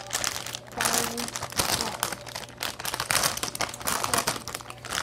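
A shiny plastic snack bag of Cheetos crinkling as it is handled and shaken about, in irregular rustling surges.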